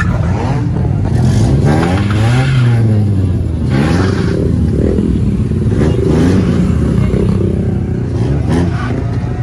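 Lowered Honda Civic sedan's engine being revved repeatedly, the pitch climbing and dropping back several times as the car creeps forward.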